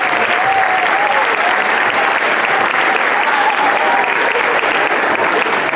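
Large audience clapping steadily and loudly. A long, wavering high note is held above the clapping.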